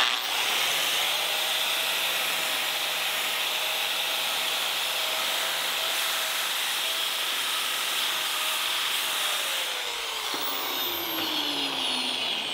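Angle grinder with a cup wire brush scrubbing rust off an electric motor's housing: a steady whirring grind. Its whine drops in pitch over the last few seconds.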